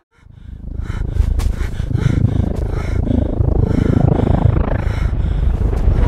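Alien spaceship sound effect: a deep, noisy rumbling drone that swells up out of silence over the first second and then holds steady.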